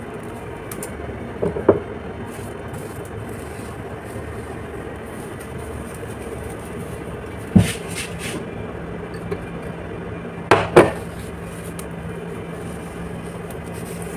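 Steady rumbling background noise, with a few sharp knocks: one about two seconds in, one about seven and a half seconds in, and a double knock about eleven seconds in. A low steady hum comes in about eight seconds in.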